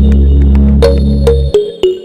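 Electronic intro music: a sustained synth bass chord under a repeating plucked synth melody, with sharp beat hits. The bass cuts out about one and a half seconds in, leaving a few notes.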